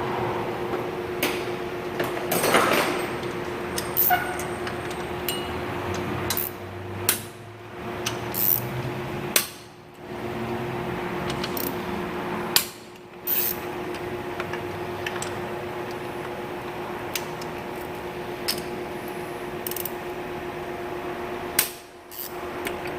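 Hand tools clinking and knocking against metal in irregular single strikes while the AC compressor's mounting bolts are being broken loose, over a steady low hum.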